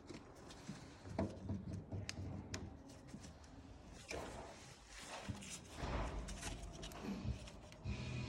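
Scattered sharp clicks and knocks with rustling and scraping, as of hands handling small parts. Music comes in near the end.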